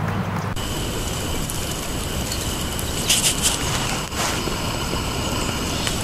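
Steady outdoor background noise with a thin high steady tone, and a brief cluster of short high chirps a little past the middle from small birds feeding on the ground.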